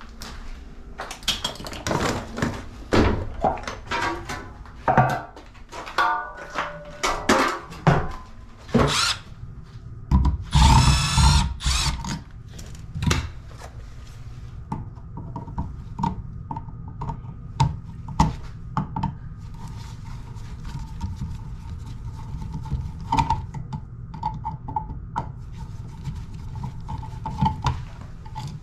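A handheld power drill runs for about two seconds near the middle, with its speed wavering, as screws are driven out of an electrical wall device. Sharp clicks and knocks of tools and parts being handled come before it, and scattered light ticks follow.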